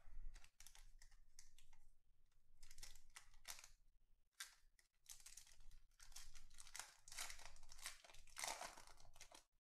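Foil wrapper of a 2020 Topps Chrome Black baseball card pack crinkling in the hands in short rustles. It is torn open near the end, the loudest rustle of all.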